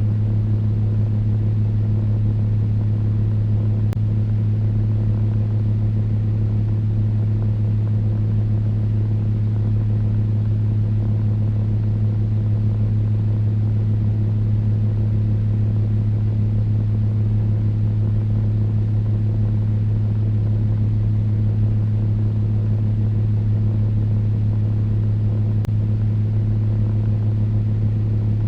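Electric fan running steadily: a constant low hum under an even hiss of moving air.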